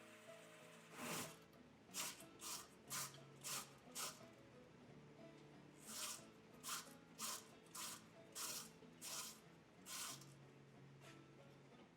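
Short scraping strokes, about two a second, in two runs separated by a brief pause, over quiet background music.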